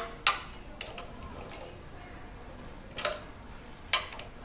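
Hand ratchet clicking in short, separate bursts, about five spread unevenly, as small oil-pan bolts are tightened a little at a time.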